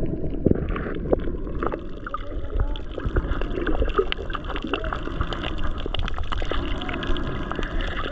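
Underwater sound through a camera's housing: a steady muffled rumble of moving water with many small clicks and crackles and some bubbling.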